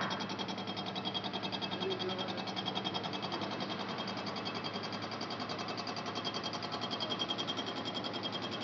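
Gantry milling machine running: a steady hum with a rapid, even pulsing.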